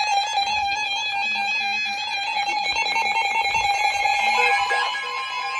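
NOAA weather radio alert alarm: a rapidly pulsing electronic beep with many overtones, with a steadier tone near 1 kHz joining near the end. It signals that a severe thunderstorm warning is being issued.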